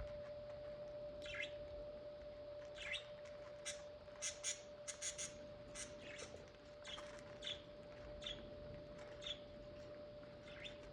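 Pet budgerigars chirping in short, scattered calls, with a quick run of chirps about four to five seconds in, over a faint steady tone.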